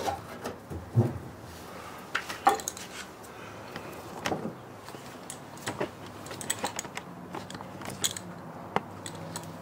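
Irregular clicks, taps and light knocks of hands working inside a van's sheet-metal sliding door while fitting butyl sound-deadening mat sheets.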